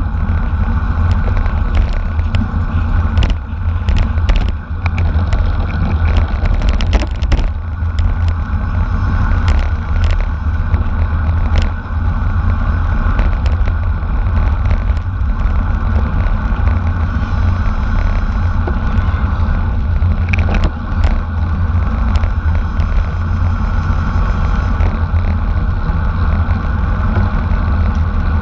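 Steady rush of wind buffeting the microphone of a camera on a racing bicycle at speed, with road noise and scattered clicks and rattles from the bike.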